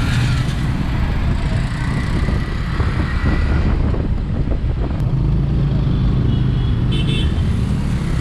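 Motorcycle riding in city traffic, heard from the bike itself: the engine runs under a steady heavy low rumble of wind and road noise on the microphone. A brief high beep comes near the end.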